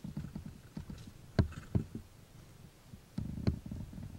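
Irregular soft thumps and rustling, broken by a few sharp knocks: a loud one about a second and a half in, another just after, and a denser run of thumps with a knock near the end.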